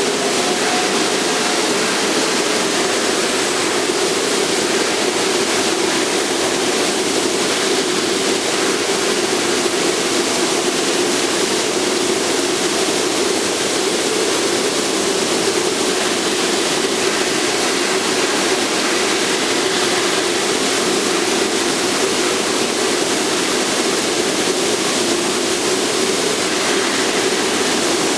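Steady industrial machinery noise: an even hiss with a constant hum, unchanging throughout.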